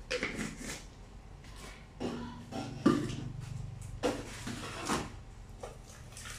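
Handling clatter of kitchen containers: a spice jar with a red plastic lid being closed and put away, then an aluminium bowl being picked up. It comes as a string of separate knocks, the loudest about three seconds in.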